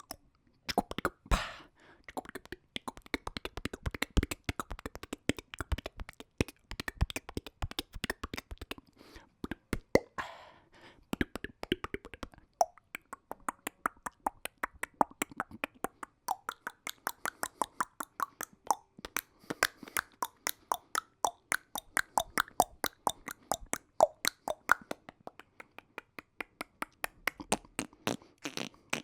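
A man's mouth noises made close to the microphone: rapid wet clicks, pops and smacks of tongue and lips, several a second, with a few longer noisy bursts.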